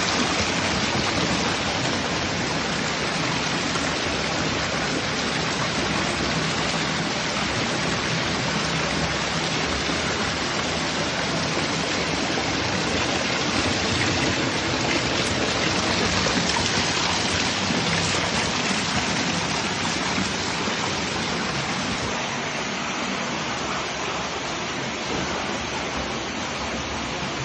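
Cascade water fountain: water falling and splashing in a steady rush.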